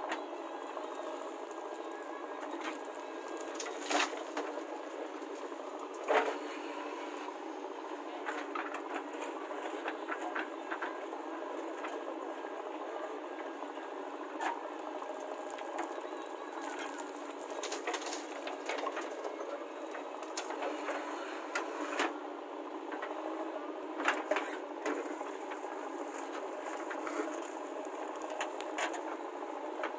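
JCB 3DX backhoe loader at work digging earth: its diesel engine runs steadily under hydraulic load, with a few sharp knocks from the digging. The sound is thin, with no deep bass.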